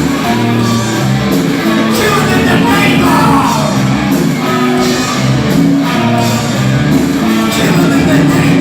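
Rock band playing live, loud and steady, with a singer's vocals over the band.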